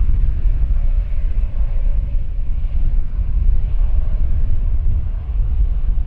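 Strong wind rumbling on the microphone, over the jet engines of a Boeing 737-800 taxiing at low power.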